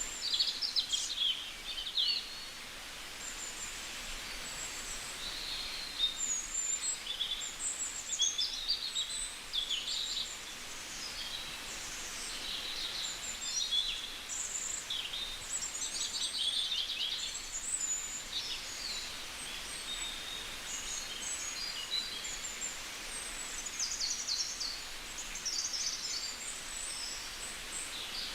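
Several songbirds chirping and singing over one another in quick, overlapping high calls and trills, over a steady background hiss.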